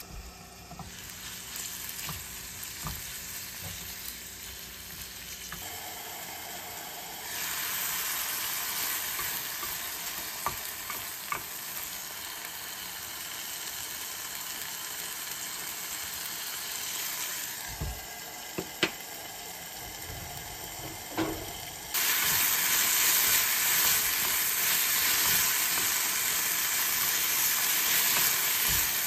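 Kimchi frying in a pan, sizzling steadily, with a wooden spatula stirring and knocking against it now and then. The sizzle steps up louder and brighter about three-quarters of the way through.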